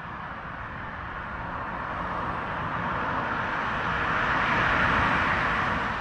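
A car approaching along a main road, its tyre and engine noise a steady rush that grows steadily louder, peaking about five seconds in.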